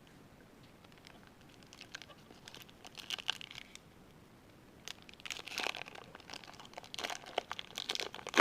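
A trading-card pack wrapper being handled, crinkling and tearing open in irregular crackling bursts that grow busier toward the end.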